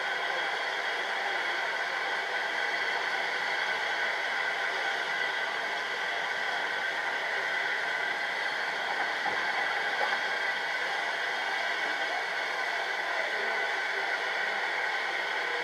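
Steam tank locomotive standing still and blowing off steam: a steady, unbroken hiss.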